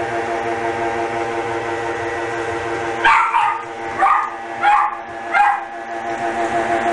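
Toy poodle puppy yapping four times in quick succession, short high barks starting about three seconds in, over steady background music.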